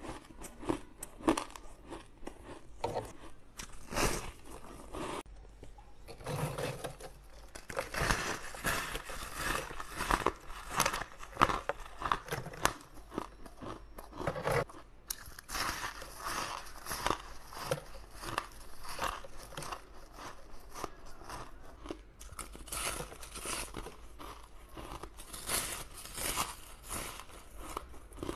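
Crisp, crunchy bites into frosted ice chunks and the chewing of them, one crunch after another in quick succession.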